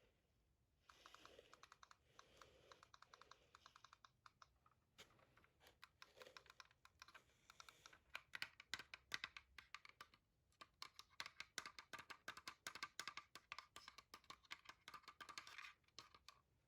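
Fast typing on a gaming computer keyboard: quick runs of keystrokes with short pauses, growing into a dense, continuous rattle of keys in the second half.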